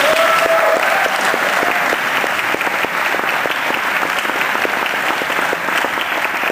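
Audience applauding: many hands clapping in a steady, dense patter after a poetry reading ends.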